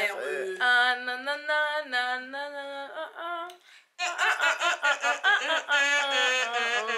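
A woman singing a wordless melody, holding long steady notes. After a short break about four seconds in, she sings louder with a wavering, warbling pitch.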